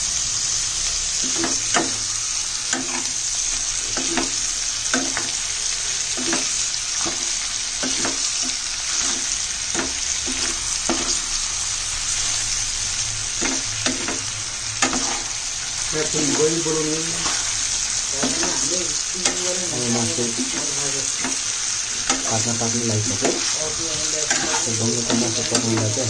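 Pork curry sizzling in hot oil in a steel kadai. A steel spoon stirs and scrapes the meat around the pan, with frequent short clinks against the metal.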